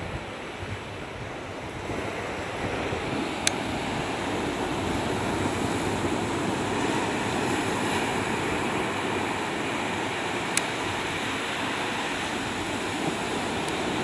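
Surf breaking on a beach: a steady rush of waves with some wind on the microphone, growing a little louder about two seconds in. A few sharp clicks stand out.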